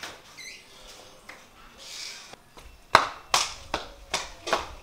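Quick footsteps of a child running on a concrete floor: sharp, evenly spaced slaps about two to three a second, starting about three seconds in, the first one the loudest.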